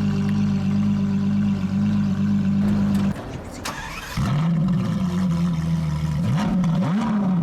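Ferrari LaFerrari's V12 idling steadily, then shutting off about three seconds in and restarting a second later with a flare of revs before settling back to idle. Two short blips of the throttle follow near the end.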